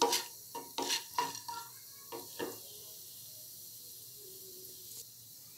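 Wooden spatula stirring urad dal in hot oil in a nonstick kadai: a quick run of scraping, tapping strokes over the first two and a half seconds, then the dal sizzling faintly in the oil as it browns.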